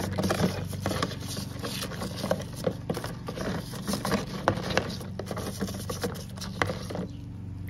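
A stiff plastic scrub brush scrubs wet rock specimens in a plastic tub of water and baking soda, neutralising the muriatic acid left on them. It makes irregular scratchy scraping with small clicks and knocks, over a steady low hum.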